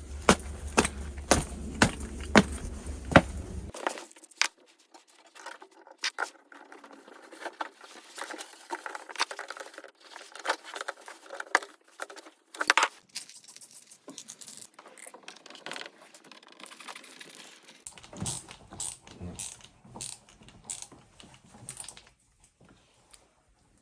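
Scattered clicks and light metallic rattling of small objects being handled, over a steady low hum during the first few seconds.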